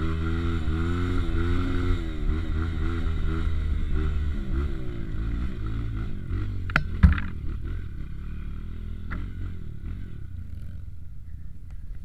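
A motor vehicle engine running, its pitch rising and falling, with a sharp knock about seven seconds in; the engine sound then fades lower toward the end.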